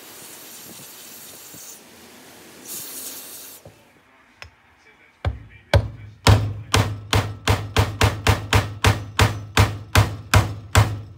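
Aerosol spray hissing in two bursts. Then, after a short gap, a mallet strikes a wooden block about eighteen times, quickening to about three blows a second, driving a part home into a Vittorazi Atom80 reduction-drive gearbox cover held in a wooden jig.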